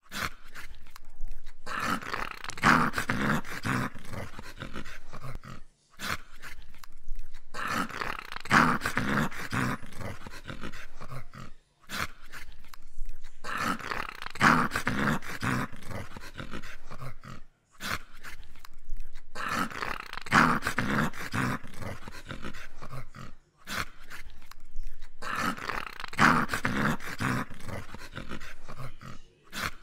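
A dog growling in play, in the same pattern over and over, about every six seconds, with a brief gap between repeats.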